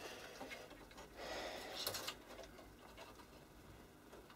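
Faint handling sounds of hands working on a metal instrument chassis: a soft rustle starting about a second in, ending in a small click just before two seconds, with a few lighter ticks.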